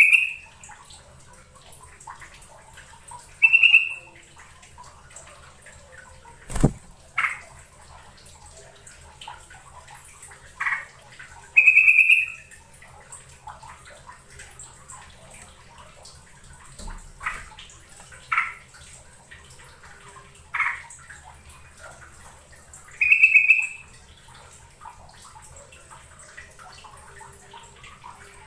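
Yellow-vented bulbul calling: short bright whistled phrases repeated every few seconds, over a faint steady background hiss. A sharp click sounds once, about six and a half seconds in.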